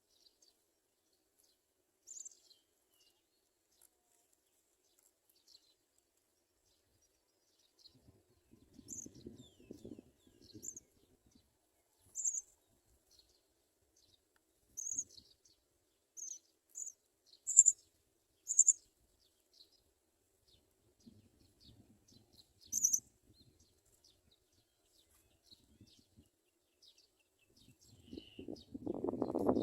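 House sparrows chirping: short, high, scattered chirps, with a quick run of louder ones past the middle. Low scuffing noise comes in briefly about a third of the way in and again near the end.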